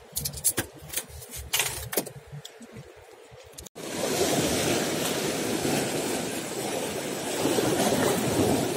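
Sea waves washing over and breaking on rocks, a steady rushing noise that starts suddenly about four seconds in. Before it, a few faint clicks and knocks.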